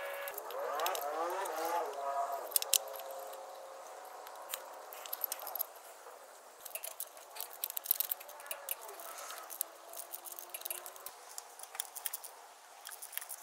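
Irregular light metallic clicks and clinks of hand tools and engine parts being handled and fitted.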